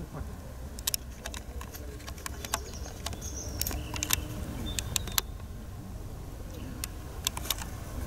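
Outdoor ambience: a steady low rumble with scattered sharp clicks and a couple of brief high chirps around the middle.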